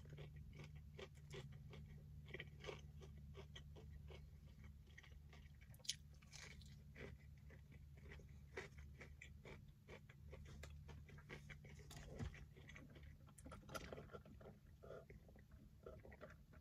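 Faint chewing of a breaded fried chicken tender: soft crunches and mouth clicks scattered throughout, over a low steady hum.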